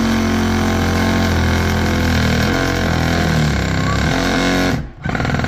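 Ryobi cordless oscillating multi-tool cutting into drywall. The motor runs with a steady buzz whose pitch wavers as the blade is loaded. It cuts off briefly near the end and starts again.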